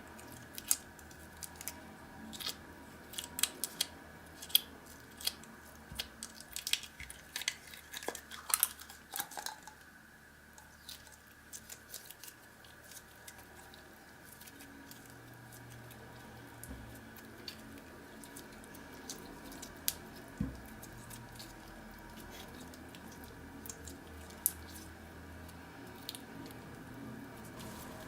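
Slime being mixed and squished by hand, giving sticky clicks and small pops, dense for about the first ten seconds and then sparser.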